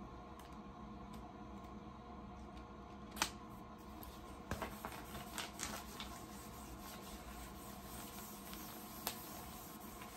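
Faint rubbing and scraping of a plastic squeegee worked over a heat-transfer sheet on a T-shirt. There is a sharp tap about three seconds in and a cluster of clicks and scrapes around four to six seconds, over a low steady hum.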